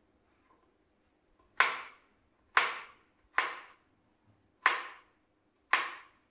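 Chef's knife chopping a red pepper on a plastic cutting board: five sharp chops, roughly one a second, starting about a second and a half in.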